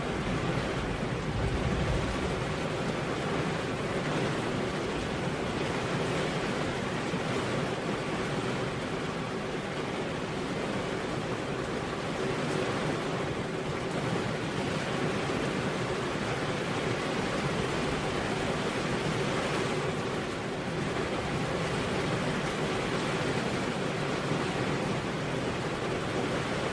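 Heavy rain falling on a road: a steady, even hiss with no thunder.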